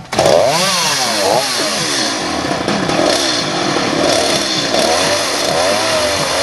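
Petrol chainsaw running at full throttle while cutting a wooden board. Its pitch swings up and down in the first second or so as it revs, then holds a steadier, wavering note under load.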